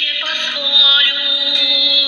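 A song playing: a singing voice holding notes over steady instrumental accompaniment.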